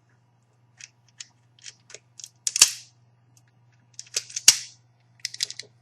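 Wire stripping tool clicking and snapping as it strips the insulation off a single Cat5 conductor: a scatter of light clicks, two loud sharp snaps a couple of seconds apart, then a quick run of clicks near the end.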